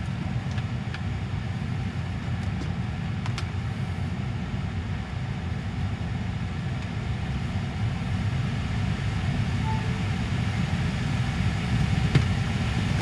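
Low, uneven rumble of wind buffeting the microphone, with a few faint clicks and one sharp knock about twelve seconds in.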